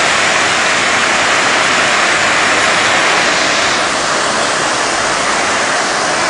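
Fast-flowing floodwater rushing and churning down a flooded street, a loud, steady rush of water. It shifts slightly and gets a little quieter about four seconds in.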